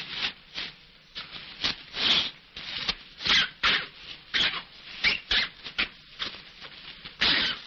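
A sheet of paper rustling and crinkling as it is handled, in irregular crackling bursts. The loudest bursts come about three seconds in and near the end.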